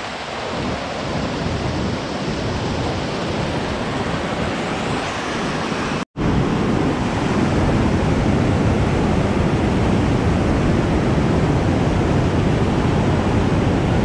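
Rushing water of small waterfalls and cascades, a steady noise. It breaks off for an instant about six seconds in and comes back louder.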